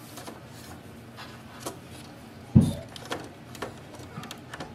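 Plastic parts of an Epson EcoTank printer's ink tank housing being handled and fitted: a few light clicks and taps, with one louder knock about two and a half seconds in.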